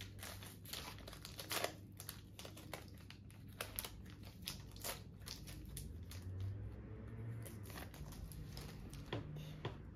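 Foil wrapper of a Pokémon trading-card booster pack crinkling and tearing as it is opened by hand: quick, irregular crackles that thin out about halfway through.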